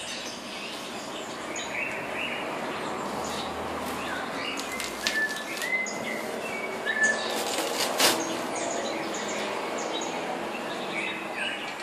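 Small birds chirping on and off over a steady rushing background noise. A few sharp clicks and knocks from objects being handled come about five to eight seconds in, the loudest near the eighth second.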